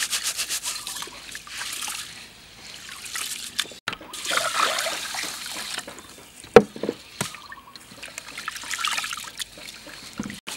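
Raw rice being washed by hand in a steel basin of water: grains rubbed and squeezed, water trickling and splashing off lifted handfuls. A single sharp knock about two-thirds of the way through.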